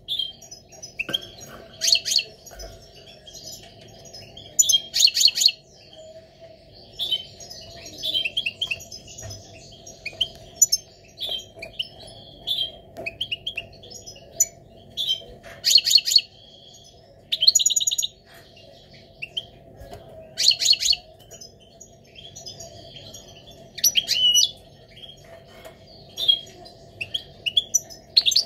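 Male European goldfinch in breeding condition singing in full song: continuous twittering of quick high notes, broken every few seconds by loud bursts of rapid buzzy rattling notes. A faint steady hum runs underneath.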